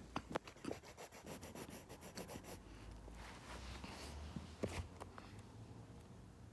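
Close rubbing and scratching with a quick run of light clicks over the first couple of seconds and a sharper click a little past the middle, over a low rumble, as the phone is handled with its lens covered.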